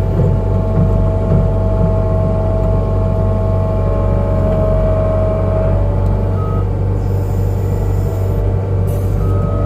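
New Holland skid steer's diesel engine running steadily with a constant whine. From about six seconds in, a backup alarm starts beeping about once a second.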